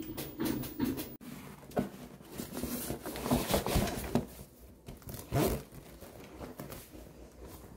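Hands rummaging in an open zippered backpack, with cloth rustling, items shifting inside and the zipper rattling in irregular bursts.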